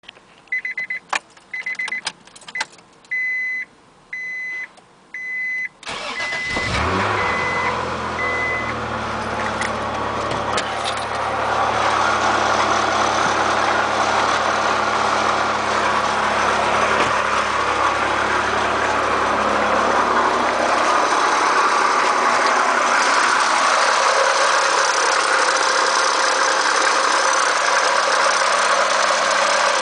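A row of steady electronic chime beeps, then the 1990 Acura Legend's V6 engine starts about six seconds in and settles into an idle. Over the idle a loud, steady, hiss-like whir builds up and takes over: the irritating engine noise whose cause the owner does not know.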